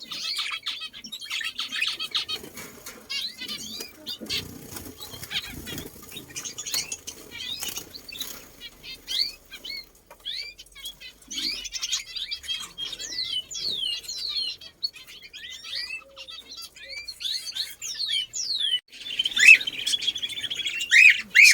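Many small birds chirping in quick, short sliding calls, with wings flapping. The chirping thickens into a loud burst near the end.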